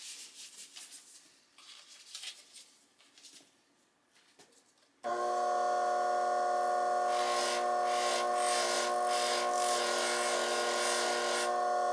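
Faint handling and rubbing sounds, then about five seconds in a hobby bench grinder's motor cuts in with a steady multi-pitched whine. From about seven seconds a 10K gold-filled watch case is pressed against the spinning cotton buffing wheel, adding a loud rushing hiss of buffing that stops shortly before the end.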